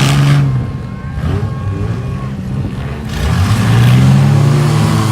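Minivan engines revving in a demolition derby, the engine note rising and falling in two loud swells, one at the start and another from about three seconds in.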